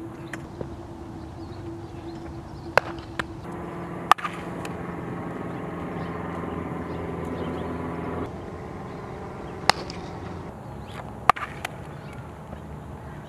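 Sharp cracks and pops of baseballs during infield practice, from a bat striking ground balls and balls smacking into gloves: four loud ones, about three and four seconds in and twice more near ten and eleven seconds. A steady hum with several tones runs from about three and a half to eight seconds in.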